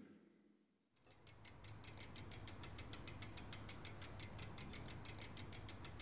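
Steady mechanical ticking, about five even ticks a second, over a low hum, starting about a second in after a brief silence.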